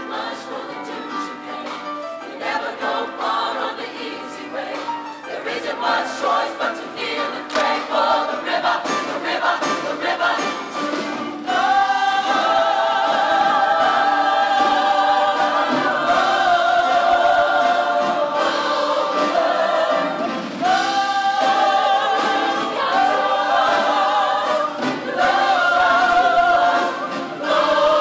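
Mixed show choir singing in full harmony. About eleven seconds in the whole choir comes in loudly on long held chords.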